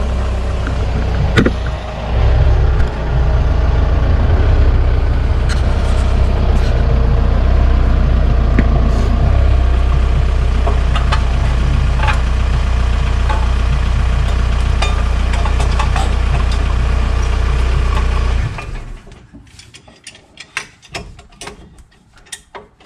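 Volkswagen Jetta's engine running close by as the car pulls in, swelling briefly about two seconds in, then idling steadily. Near the end the engine is switched off and the hum stops suddenly, leaving a few light clicks and knocks.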